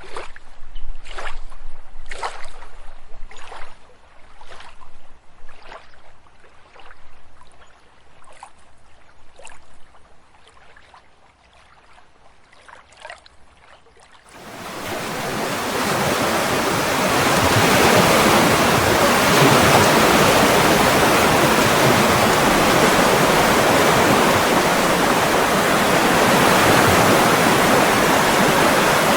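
Water splashing in an even rhythm, about one splash every three-quarters of a second, fading away over the first half. About halfway through, it changes abruptly to a loud, steady rush of flowing water.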